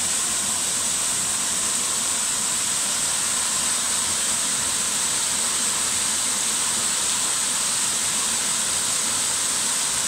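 Small waterfall pouring down a series of rock ledges close by: a steady, unbroken rush of falling water.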